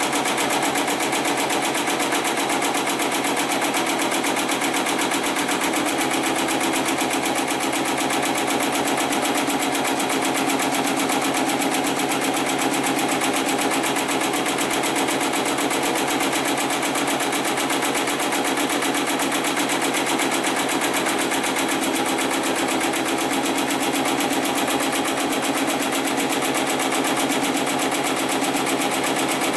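HIGHTEX #75008 heavy-duty electronically controlled pattern sewing machine stitching a pattern through layered polyester webbing, running at a fast, even stitch rhythm without pause.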